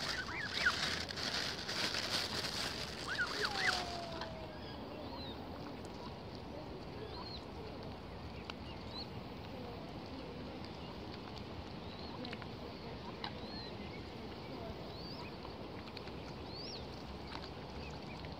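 A rustling hiss with a few short high peeps for the first four seconds, then a steady low outdoor background with scattered faint bird chirps.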